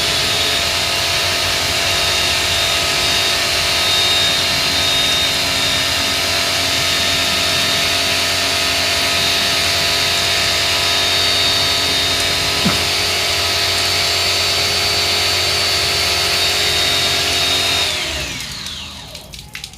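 An electric motor-driven tool runs steadily with a constant whine, then is switched off near the end and winds down, its pitch falling as it slows.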